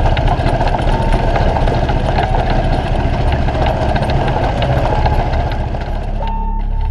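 PGO buggy engine running while driving along a gravel lane, with steady rattle and vibration noise. About six seconds in, the driving noise drops away and music begins.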